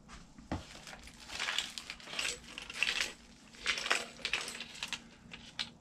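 A cellophane-wrapped pack of model ship kit parts being lifted and handled: the plastic crinkles in irregular bursts, with small parts clicking and rattling in their plastic tray.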